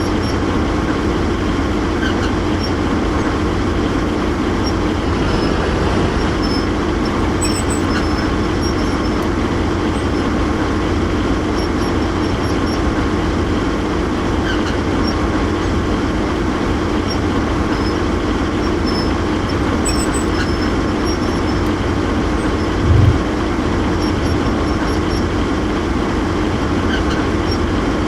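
Heavy vehicle engine running steadily with a constant low rumble and a few faint metallic ticks, and one short low thump about 23 seconds in.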